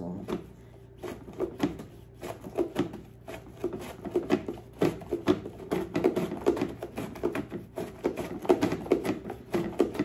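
A cucumber being slid back and forth over the angled blade of a plastic vegetable chopper, slicing in a quick repeating rhythm of about two to three strokes a second. The slices fall into the chopper's plastic container.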